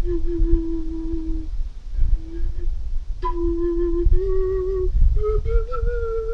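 Home-made flute made from a metal bicycle pump, blown like a transverse flute. It plays a long held note, then a short one, then a run of notes stepping upward in pitch from about three seconds in.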